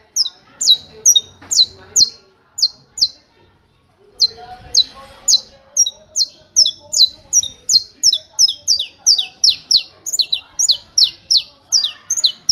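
Saffron finch (canário-da-terra) singing its 'martelo' song: a run of sharp, high, downward-sliding notes repeated evenly, about three a second. After a pause of about a second near the three-second mark, the notes resume and quicken to about five a second, some of them doubled.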